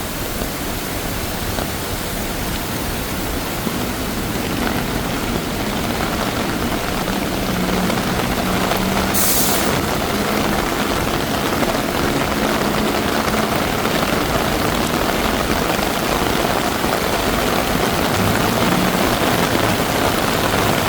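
Heavy tropical downpour: a steady hiss of rain and running water that grows slightly louder, with road traffic passing, including an engine hum about a third of the way in and a short sharp hiss about halfway.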